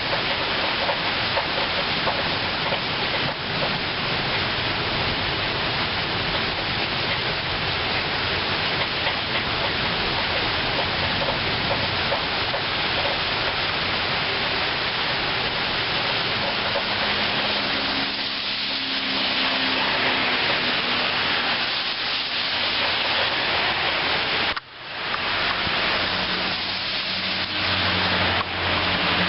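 Heavy rain falling steadily, a dense even hiss of water. About three quarters of the way through the sound drops out for a moment, and faint low hums sit under the rain in the second half.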